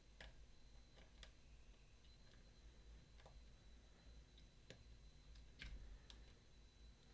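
Faint, irregular clicks and ticks of a lock pick working the pins inside a Mottura CP6 dimple lock, a few scattered clicks a second or more apart.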